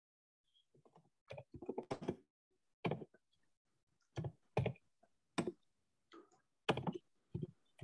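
Computer keyboard typing heard over a video call: a quick run of keystrokes about a second and a half in, then single key taps at irregular gaps of about half a second to a second.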